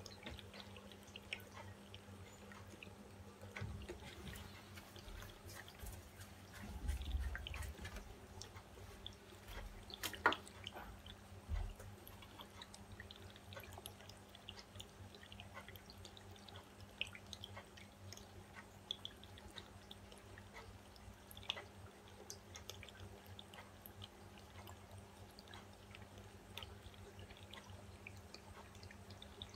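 Small plastic cups of acrylic paint being picked up and set down on a tabletop: faint clicks and taps, with a few louder knocks between about four and twelve seconds in, over a steady low hum.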